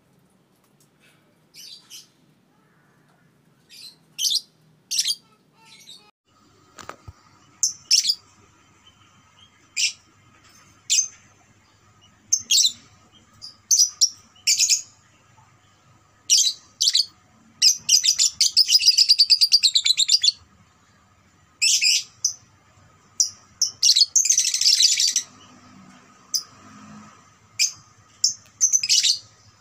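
Young Fischer's lovebird giving short high chirps, with two long rapid chattering trills (the 'ngekek') near the middle, the first about two and a half seconds long. A single sharp click sounds about seven seconds in.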